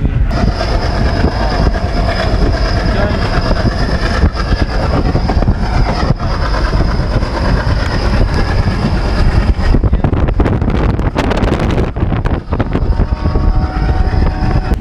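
Passenger train running at speed, heard from an open coach doorway: a steady rumble of wheels on the rails with rushing air. A thin high whine sits over it for the first ten seconds or so, and there is a patch of sharp clatter around ten to twelve seconds in.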